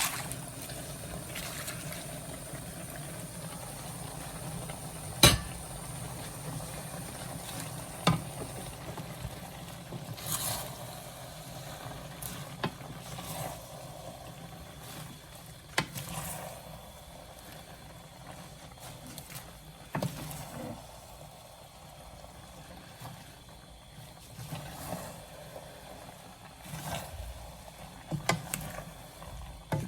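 Noodles and vegetables cooking in a pan, a steady low sizzle, with a few sharp clinks of a spatula or utensil striking the pan as the food is stirred.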